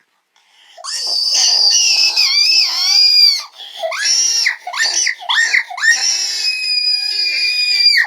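Loud, high-pitched squealing and shrieking passed off as a snore: a long wavering squeal starting about a second in, a string of short rising squeals, then a long held shriek that cuts off suddenly near the end.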